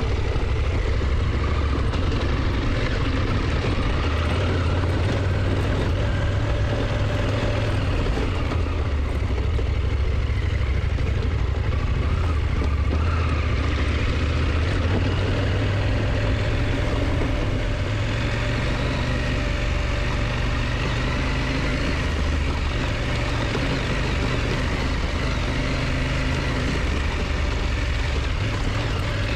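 KTM motorcycle engine running steadily, with a constant rush of wind noise over it.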